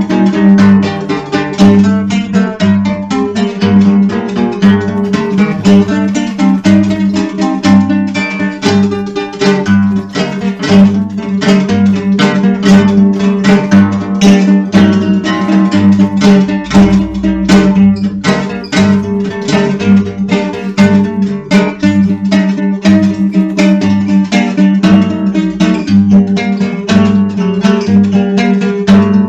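Dark folk music: steadily picked acoustic guitar over a held low drone, with a low note pulsing about twice a second.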